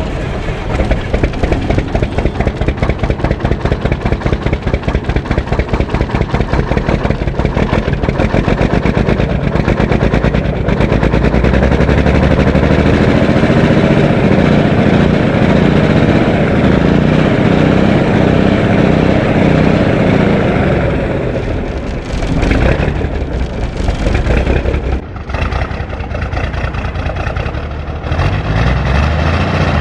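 Cummins 855 inline-six diesel running with rapid, even exhaust pulses, just brought to life after sitting for a couple of months. About ten seconds in it is revved up, its pitch rising and falling, before it drops back about twenty seconds in to quieter, uneven running.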